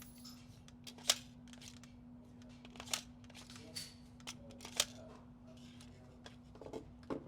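Irregular light clicks and taps, a dozen or so, the sharpest about a second in and near five seconds, over a steady low hum.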